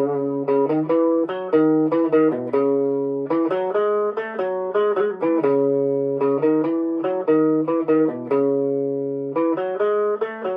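Electric guitar through a Fender Champion 20 amp on its most distorted Tweed setting, Tweed Orange, playing a lead line. The line is a run of picked notes and double-stops, some held and sustaining for about a second.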